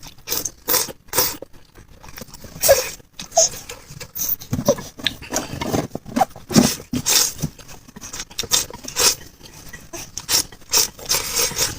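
Close-miked eating sounds: irregular chewing, smacking and mouth clicks in quick, uneven succession.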